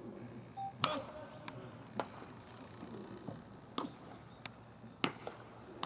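A fungo bat cracking against a baseball about a second in, followed by several fainter sharp knocks spaced about a second apart, with faint voices calling.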